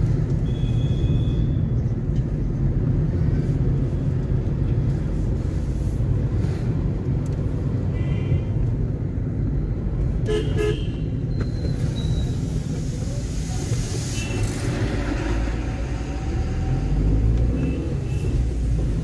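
Steady low drone of a moving car, heard from inside it, with several short vehicle-horn toots from the traffic around it.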